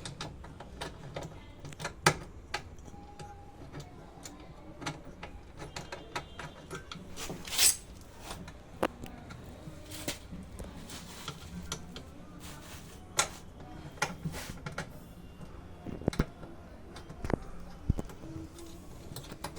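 Scattered clicks, knocks and small metallic clinks of washing-machine parts and hand tools being handled and fitted, with one louder brief scrape about eight seconds in, over a low steady hum.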